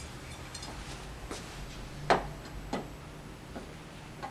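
Scattered light knocks and taps, about four in all, the loudest a little past two seconds in, from someone moving about and handling threaded steel rods during furniture assembly.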